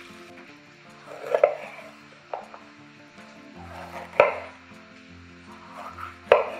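Knife strokes on a cutting board: four sharp knocks, irregularly spaced, the three louder ones each led in by a short scrape of the cut. Quiet background music runs underneath.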